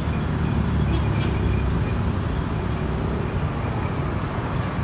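Steady low rumbling background noise, with no distinct events in it.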